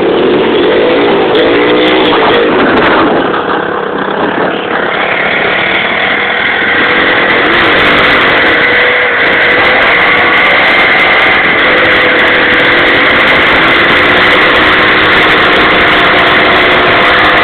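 Small motorcycle engine revving hard during a burnout, its rear wheel spinning in dirt. The revs rise and fall for the first few seconds, then are held high and steady.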